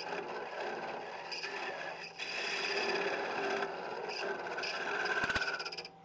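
A woodturning tool cutting into a spinning wooden jam chuck on a lathe. It makes a continuous rough scraping, taking wood off for clearance, and the cutting stops abruptly just before the end.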